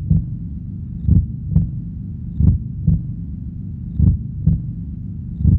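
Heartbeat sound effect: slow, paired lub-dub thumps about every second and a half over a low steady hum.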